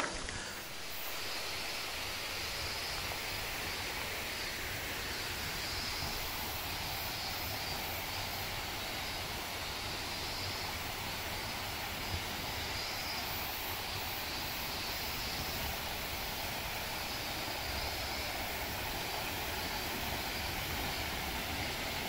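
Steady rushing noise of a mountain bike being ridden: wind rumbling on the microphone over the hiss of tyres rolling on the trail.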